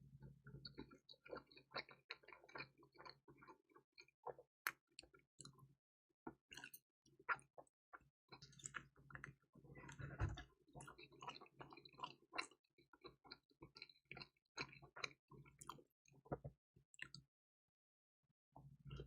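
Close-up chewing of crispy, cheesy pizza topped with dried radish greens and bulgogi: quick irregular crackles and clicks of the crust, with wet mouth sounds. A faint low hum runs underneath. Everything stops for about a second near the end.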